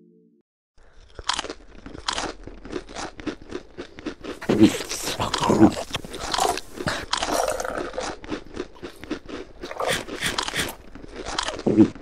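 Crunching and chewing of food: many irregular, closely spaced bites and crunches, starting about a second in.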